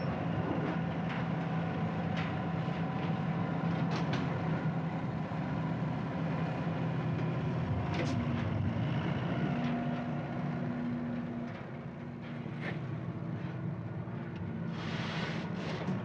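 Steady mechanical rumble of machinery with a low hum, broken by a few sharp metallic clanks about four, eight and twelve seconds in.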